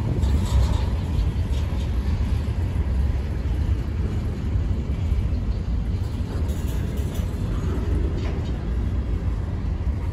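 Slow-moving freight train of covered hopper cars rolling past: a steady low rumble of steel wheels on the rails, with a few faint clanks.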